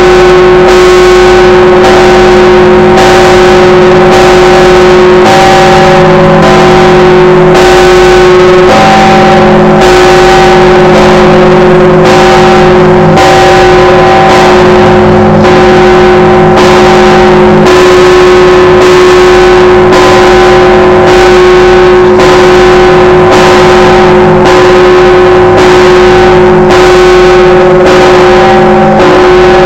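Orthodox church bell ringing led by the 7,150 kg 'All Saints' bell: an even run of strikes about once a second, each leaving a ringing hum of several tones. Other bells join in and fall away. The recording is overloaded and distorted.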